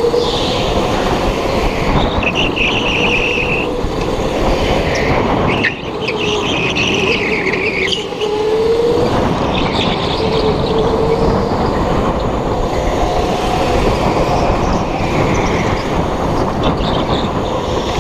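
Go-kart running flat out, heard on board over a steady rough rumble, its motor note rising and falling through the corners. Tyres squeal in the turns about two to three seconds in and again around six to seven seconds in.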